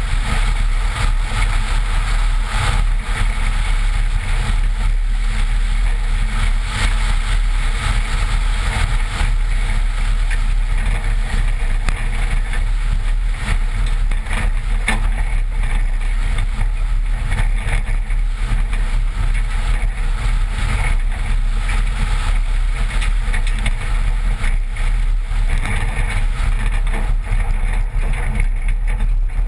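A 1986 Toyota driving fast on a dirt and gravel track: a steady low rumble of tyres on gravel and wind buffeting the microphone beside the front wheel, with frequent small knocks from stones and bumps.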